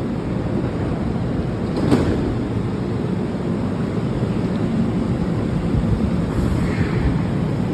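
Steady low rumble of a moving train, with a single short knock about two seconds in.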